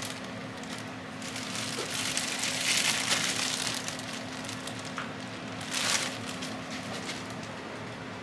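Two spells of crinkly rustling, the first about two and a half seconds long and the second shorter, with a few light clicks, over a steady low hum.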